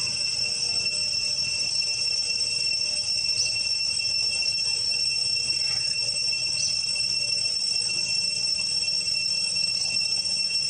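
Steady, high-pitched drone of forest insects, with a faint short chirp every few seconds.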